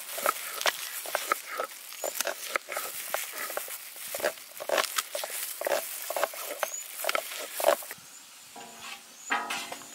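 Knife slicing through red onions on a wooden chopping board: irregular crisp cuts, a few a second, that stop about eight seconds in. A brief pitched tone follows near the end.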